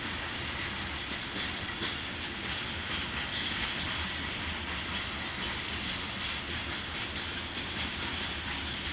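Freight train's covered hopper cars rolling past, a steady rumble and rush of steel wheels on the rails.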